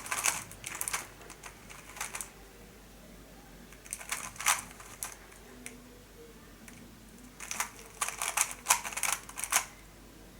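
3x3 Rubik's cube being turned by hand during a blindfolded solve: quick runs of plastic clicks and clacks as the layers turn. There are four bursts, with pauses between them, and the longest run comes near the end.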